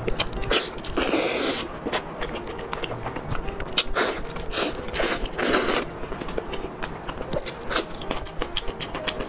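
Close-up eating sounds of a person biting and chewing sticky braised pork off the bone: rapid wet clicks and lip smacks throughout, with a few longer, louder wet bursts about a second in and again around four and five and a half seconds.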